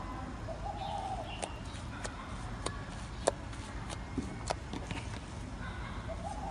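Slime being handled, making scattered small sharp clicks and pops over a low background hiss. A short, low warbling call is heard about a second in and again near the end.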